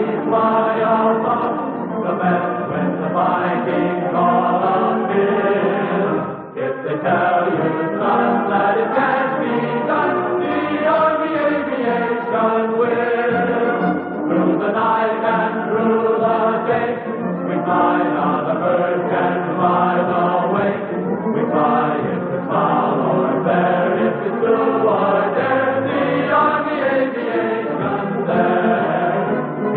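Choral music: a choir of many voices singing long held notes that move from chord to chord, with a brief break about six and a half seconds in.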